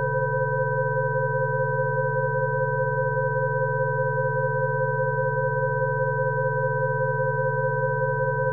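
Rife frequency tones: several steady electronic sine tones sounding together over a lower hum, one of the middle tones fluttering rapidly.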